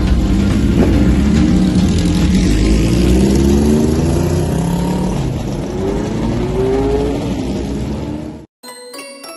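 Several classic Japanese motorcycles revving and pulling away one after another, the engine pitch rising again and again as they accelerate. The engine sound cuts off suddenly near the end.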